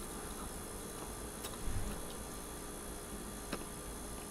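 Quiet room tone: a steady electrical hum and hiss with a few faint clicks.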